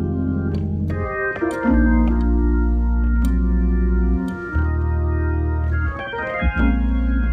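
Organ played live: slow, sustained chords over a deep held bass note, moving to a new chord about every second or two.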